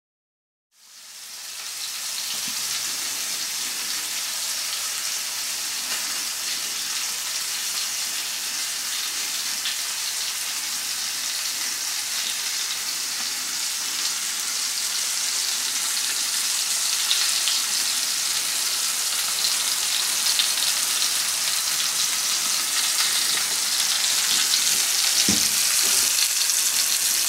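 Beef pot roast sizzling in oil in a frying pan as it browns: a steady frying hiss that fades in about a second in and slowly grows louder. Two soft knocks come near the end.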